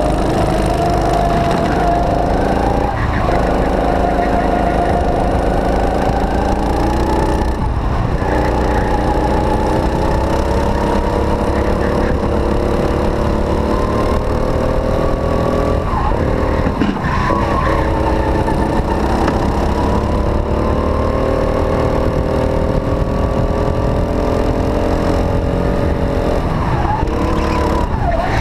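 Rental go-kart engine heard from on board, running at high revs down the straights: its pitch climbs steadily, then drops sharply four times as the kart slows for corners, before rising again.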